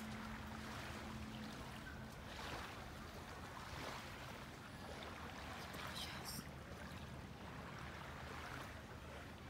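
Faint steady outdoor background noise, with a faint low hum that fades out in the first second and a half and a brief high chirp about six seconds in.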